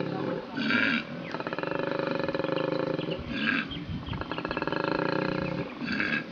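Koala bellowing: short harsh intakes of breath alternating with long, deep, rapidly pulsing grunting exhalations, the cycle repeating about every three seconds.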